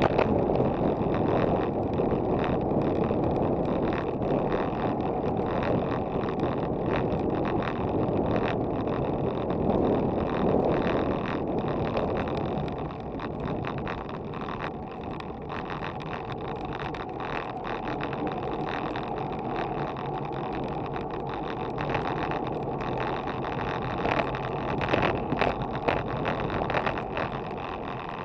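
Steady wind rushing over the microphone of a bike-mounted action camera, mixed with road-bike tyres rolling on a paved cycle path, with many small clicks and rattles throughout.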